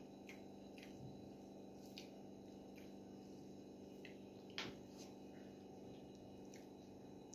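Faint wet squishing of rice and dal being mixed and picked up by hand from a metal plate, with scattered soft clicks, the loudest about four and a half seconds in, over a steady low hum.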